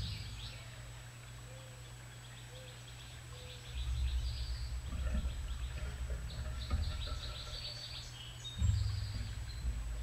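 Small songbirds chirping and twittering in quick series of short, high notes, over a low rumble that swells about four seconds in and again near the end.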